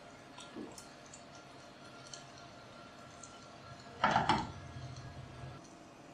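Cookware clattering on the stove: a quick cluster of sharp knocks about four seconds in, over a faint steady hiss.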